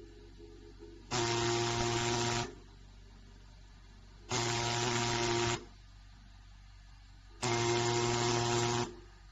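HAE P008 pneumatic dot-pin marking machine's pin hammering rapidly into a steel flange, heard as a loud buzz. It comes in three bursts of about a second and a half, each burst stamping one character, with quieter pauses between characters.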